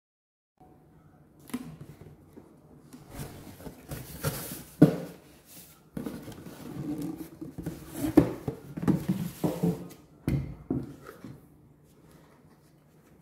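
Unboxing handling noise: a cardboard box and the packaging in it rustle and scrape as a plastic-bodied Parkside cordless inflator/compressor is handled. Several sharp knocks, the loudest about five and eight seconds in; the inflator's motor is not running.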